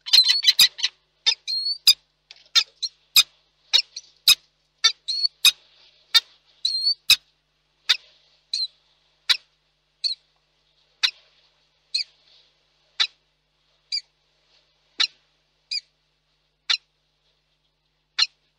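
Peregrine falcon courtship calling: short, sharp chipping calls, several a second at first, slowing to about one a second and then spacing out near the end.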